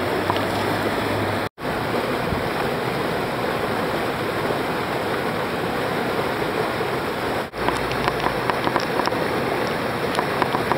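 Rushing whitewater of a river's standing wave, a steady churning wash of water. It cuts out for an instant twice, about a second and a half in and again about seven and a half seconds in.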